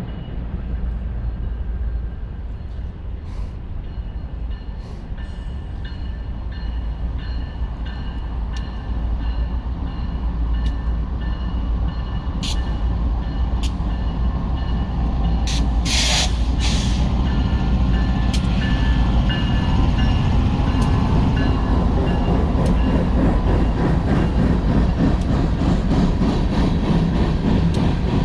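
Freight train with diesel locomotives approaching and passing, a low rumble that grows louder and then settles into the steady rumble of freight cars rolling by. A few sharp clicks come around the middle.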